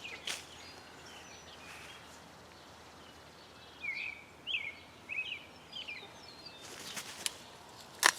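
A small bird chirping in short, sharp notes, several in quick succession about four seconds in, over faint outdoor background noise. A few sharp clicks sound near the end.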